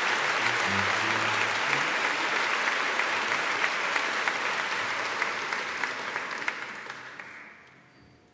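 Audience applauding, a dense patter of clapping that fades away over the last two seconds.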